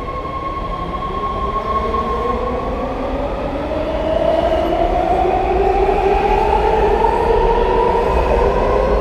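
Washington Metro Red Line train accelerating, its traction motors whining in several tones that rise steadily in pitch over a low rumble, growing louder about four seconds in.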